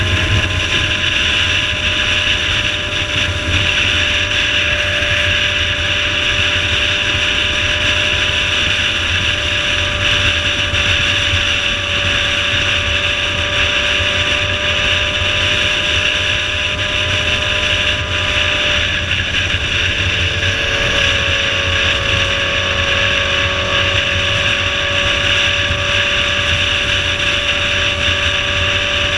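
Motorcycle cruising at highway speed: a steady engine note under heavy wind rush on the microphone. The engine pitch shifts briefly about two-thirds of the way through.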